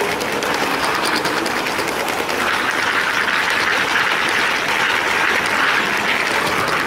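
Lego train riding on plastic track, its wheels and motor making a steady crackling rattle with fine rapid clicks. The rattle grows louder and brighter about two and a half seconds in.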